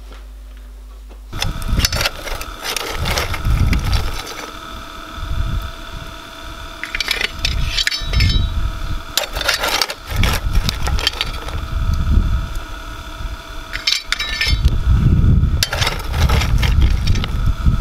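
Lumps of coal clinking and rattling as they are handled from the coal bunker and fed into the firebox of a 3-inch scale Allchin traction engine while it is being fired to raise steam, in several bursts. A steady whine and an uneven low rumble run underneath.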